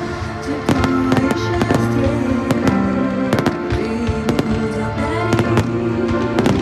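Fireworks bursting with many sharp bangs at irregular intervals, over loud music with long held notes.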